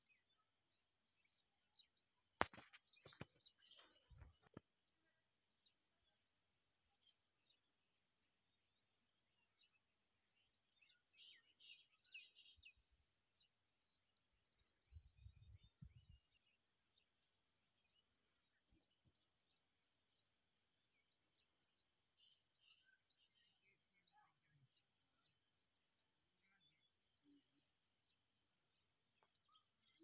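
Faint, steady chorus of insects making two continuous high-pitched trilling buzzes, joined about halfway through by a second, faster-pulsing insect trill. A few bird chirps come in near the middle, and a few sharp clicks sound in the first few seconds, one of them the loudest sound here.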